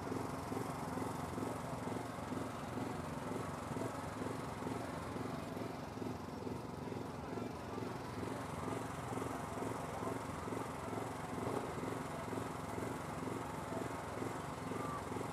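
An engine running steadily with an even, regular pulse.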